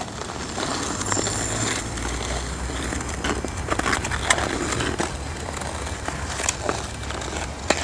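Irregular scraping and crunching on snowy ice from skates or steps, over a low rumble.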